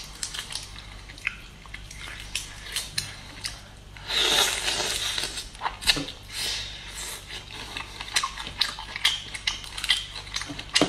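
Cooked prawns being peeled by hand: shells crackling and snapping in a run of small sharp clicks, with a longer, louder crackle about four seconds in.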